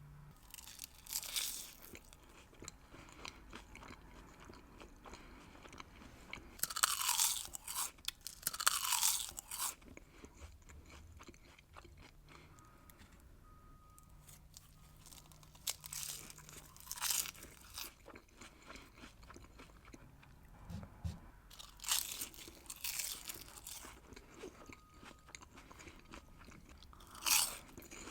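Close-miked eating of crispy rice paper rolls with California roll filling: loud crackling crunches from bites about six times, with softer crunchy chewing in between.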